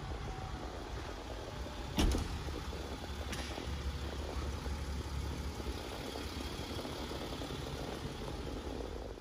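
Steady low rumble of a car, broken by a sharp thump about two seconds in, the loudest sound, and a lighter click about a second later.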